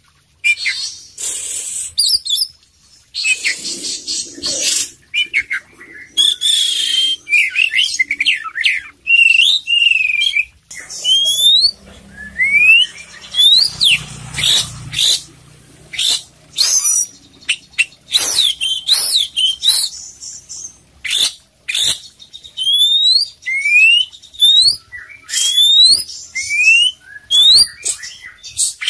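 Oriental magpie-robin singing continuously in full song, a varied run of quick rising whistled notes, harsh buzzy phrases and sharp clicks, packed with mimicked calls.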